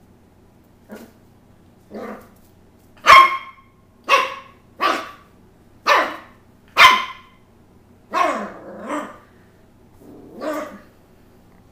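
Shetland sheepdog puppy barking: two soft barks, then a run of loud, sharp barks about a second apart, and a few longer, quieter ones near the end.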